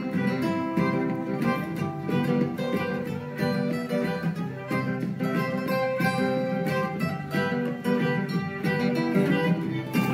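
Background music led by an acoustic guitar, plucked and strummed in a busy, steady stream of notes.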